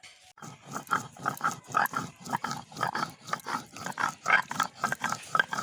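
Green chillies being ground on a stone slab with a hand-held grinding stone: rough rhythmic back-and-forth grinding strokes, about three a second, making chilli paste.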